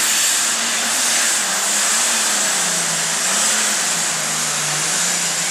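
Super stock pulling tractor's turbocharged diesel engine running flat out under load as it drags the sled, with a steady high whine over it. The engine note sags a little about halfway through.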